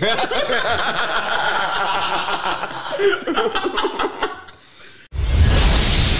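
Young men laughing hard at a joke for about four seconds. About five seconds in, it cuts abruptly to a loud intro music sting with heavy bass.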